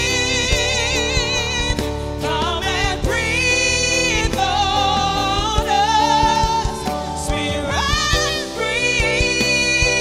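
Two women singing a gospel worship song live, "Spirit breathe, come and breathe on us", holding long notes with vibrato over keyboard and band accompaniment.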